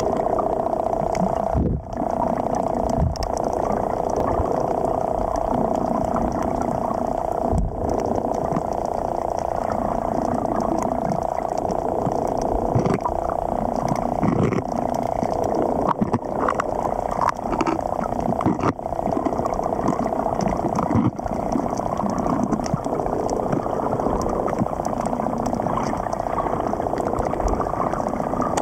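Muffled underwater ambience: a steady drone with scattered clicks and crackles.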